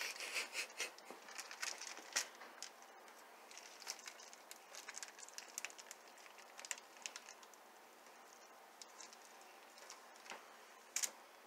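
Plastic wrapper on a chub of ground venison crinkling and crackling as it is peeled back by hand: faint scattered crackles, busiest in the first few seconds, with a louder crinkle near the end.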